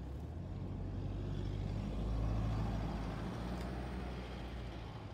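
NR- and AN-class diesel-electric locomotives hauling an intermodal freight train in the distance: a low, steady engine drone that swells to its loudest about two seconds in, then eases off.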